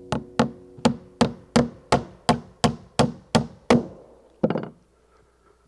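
Hammer driving a nail into wooden roof boards: about a dozen sharp blows at a steady pace of roughly three a second, then after a short pause a final quick pair of blows.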